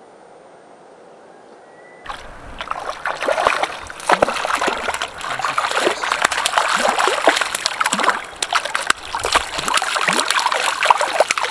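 Hooked cutthroat trout thrashing at the lake surface in the shallows, a fast, continuous run of splashes that starts abruptly about two seconds in.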